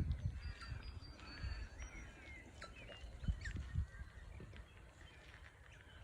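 Rosellas calling: a busy run of short, quick chirping notes from several birds, thinning out over the last couple of seconds, with a few low thumps on the microphone.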